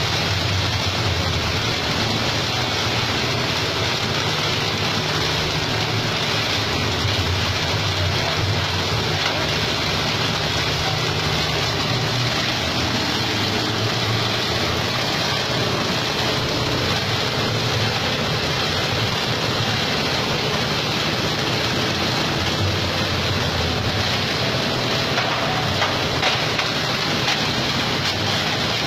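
Plastic-bottle shredder driven by an 8 hp diesel engine, running steadily: a constant low engine hum under an even, dense hiss.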